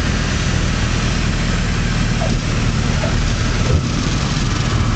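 Cabin noise of a Beechcraft Bonanza on landing approach: the flat-six piston engine and propeller running steadily with wind rush over the airframe. A small knock a little before the end.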